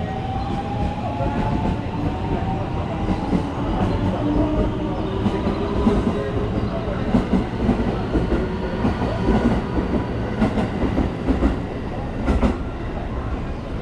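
Electric commuter train moving along the platform: the motor whine rises in pitch, and the wheels click over the rail joints, the clicks coming thickest in the second half.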